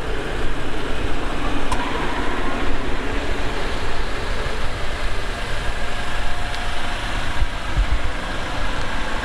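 Jeep Wrangler engines idling steadily.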